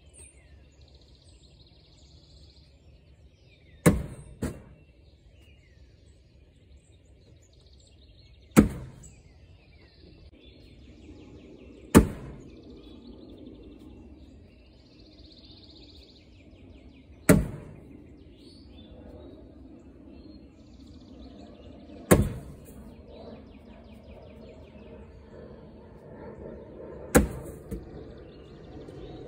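Nola Jester and then Coastal Swordsman cornhole bags landing one at a time on a wooden cornhole board, six sharp thuds about every four to five seconds. Birds chirp faintly in between.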